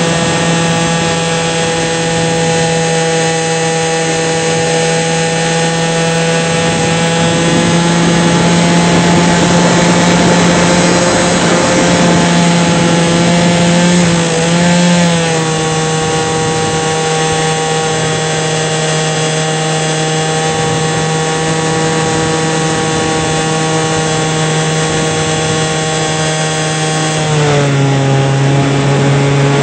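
Model airplane's engine and propeller running steadily at high speed, heard loud and close from a camera on board. The pitch wavers briefly about halfway through and drops a step near the end.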